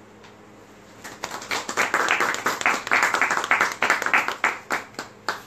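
A small audience clapping by hand, starting about a second in, filling out quickly, then thinning to a few last separate claps near the end.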